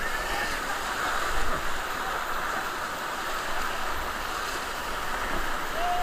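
Whitewater rapids rushing and churning around an inflatable raft: a steady, dense wash of water noise that surges about a second and a half in.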